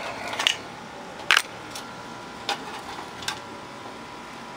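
A few sharp clicks and light knocks, the loudest about a second in, as parts and wiring are handled inside an opened amplifier's metal chassis.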